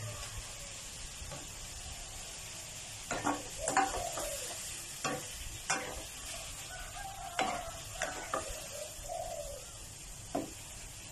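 A spatula stirring and scraping fish pieces and chili paste in a wok, with a soft sizzle underneath. Irregular knocks and scrapes start about three seconds in, and a bird calls now and then in the background.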